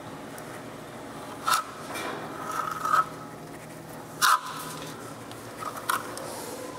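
Notched trowel scraping as it spreads and combs adhesive across the subfloor for a marble hearth: four louder scraping strokes about a second and a half apart.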